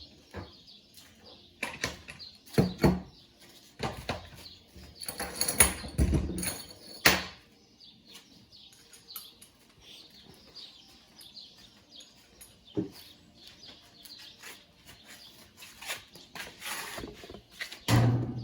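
Irregular knocks and clatter from a washing machine being dismantled, loudest in a cluster about five to seven seconds in, with birds chirping steadily in the background.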